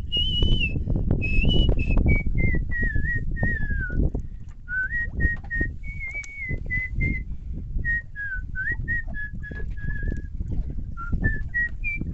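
A person whistling a wandering tune, one clear note stepping and sliding up and down, with low rustling and knocking underneath.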